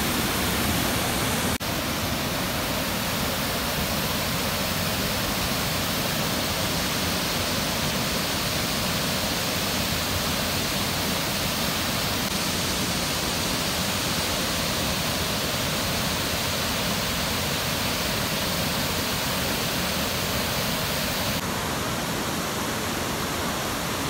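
Steady rush of a waterfall and fast river current, the water swollen and strong after heavy rain.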